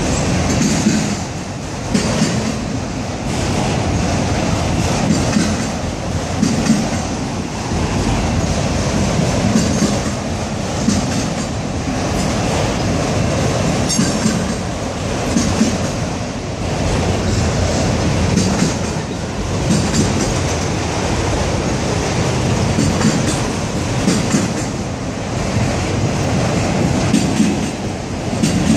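Freight train of autorack cars rolling past, with a steady rumble and a recurring clack every second or two as wheel sets cross rail joints, plus some high steel-wheel squeal.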